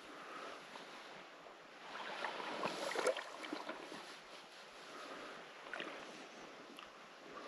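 Shallow lake water sloshing and lapping around someone standing in it, swelling for a second or so about two to three seconds in, with a few light clicks.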